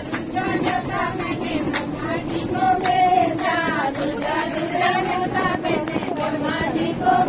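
Several voices singing a devotional song together, with a sharp percussive beat, over the steady running noise of the bus.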